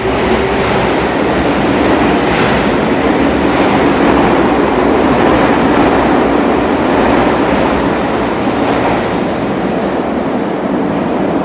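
Tokyu 5050-series electric train running, a steady loud rumble of wheels and running gear on the rails.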